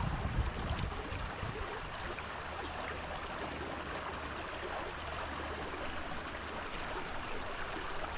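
Creek water running steadily over rocks, a constant rushing babble, with a brief low rumble in the first second.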